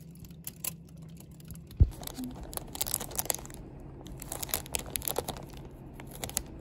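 Thin plastic packaging crinkling and crackling as it is handled, in short scattered bursts, with one dull thump about two seconds in.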